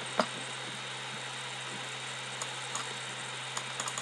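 Computer mouse clicking: one sharp click about a quarter second in and a few faint clicks near the end, over a steady low electrical hum and hiss.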